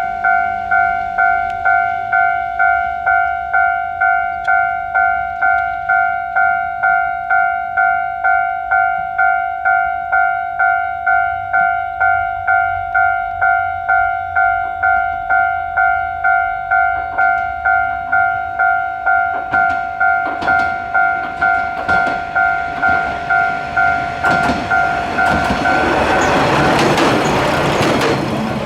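Japanese level-crossing warning bell ringing a steady two-tone electronic clang, about one and a half strokes a second. From about two-thirds of the way in, a Kishu Railway diesel railcar approaches with a rising rumble and clanks over the crossing. The bell stops just before the railcar passes, and the train noise is loudest at the end.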